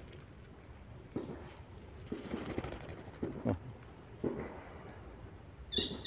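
Several soft, dull footsteps on clay and leaf litter over a steady high insect drone; near the end a bird starts calling with quick, sharp, repeated notes.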